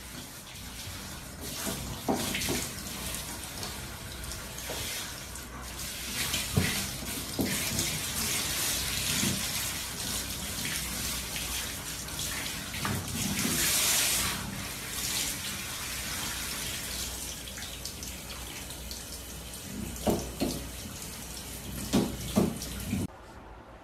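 Water spraying from a handheld shower head in a shower stall, a steady hiss that swells for a moment about halfway through. Short knocks and thuds come now and then, louder near the end.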